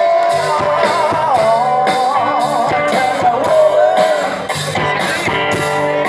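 Rock music with guitar and a steady drum beat.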